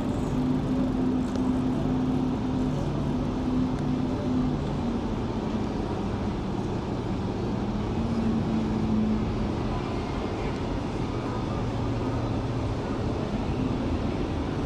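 Steady rumble of city traffic, with the hum of passing vehicle engines coming and going.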